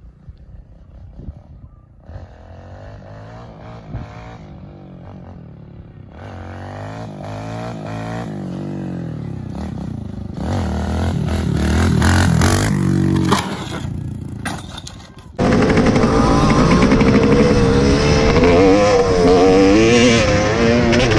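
Kawasaki KLX110L four-stroke dirt bike approaching, its engine getting louder and its pitch rising and falling with the throttle. About fifteen seconds in, a sudden cut to the louder two-stroke engine of a Yamaha YZ250X heard from on the bike, revving up and down while riding.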